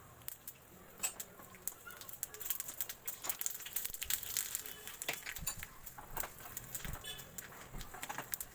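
Something cooking in a pan, sizzling with irregular crackles and pops that come thicker from about two seconds in.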